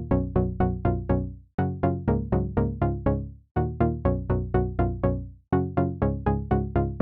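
Background music: a synthesizer or keyboard playing quick repeated notes, about five a second, in phrases of roughly two seconds with short breaks between them.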